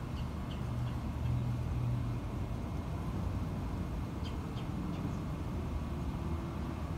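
Steady low rumble of motor vehicle traffic. A few short high chirps come in two small groups, near the start and again about four seconds in.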